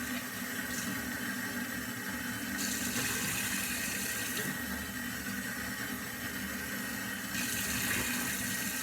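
Kitchen tap running steadily into a sink, with an even rush of water and a low hum.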